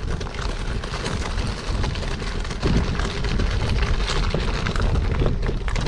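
Wind buffeting the microphone over the rattle and knocks of a bicycle riding along a rough trail.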